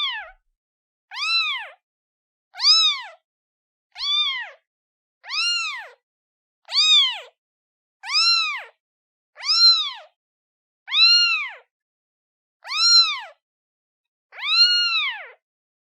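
Newborn kitten meowing repeatedly for its mother: a steady series of high calls about a second and a half apart, each rising then falling in pitch. The last call, near the end, is longer than the rest.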